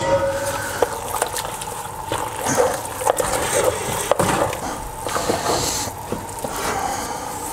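A spoon stirring a stiff, heavy mash of buckwheat meal, minced meat and broth in an enamelled cast-iron pot: wet scraping and squelching with scattered knocks of the spoon against the pot. The mixture is thickening and takes effort to work.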